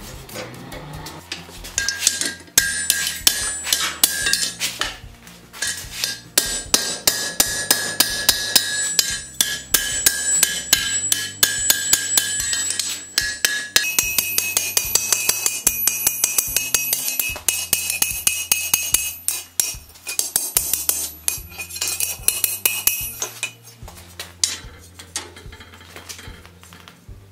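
Hand hammer forging a red-hot iron bar on an anvil: a long run of quick blows with a steady metallic ring that shifts higher about halfway through. The blows stop shortly before the end.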